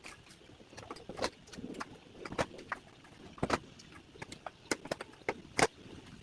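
Plastic locking clips being squeezed and pulled out of a large cardboard shipping box: a string of irregular clicks and knocks with cardboard handling noise between them. The sharpest knocks come about three and a half seconds in and near the end.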